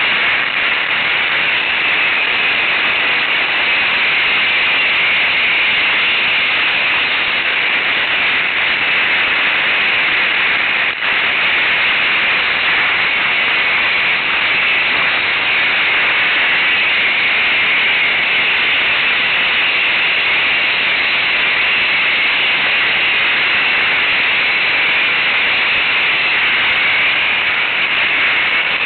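Steady, loud, static-like hiss of wind and riding noise on the microphone of a camera carried on a moving ATV; no engine note stands out. It briefly drops out about eleven seconds in.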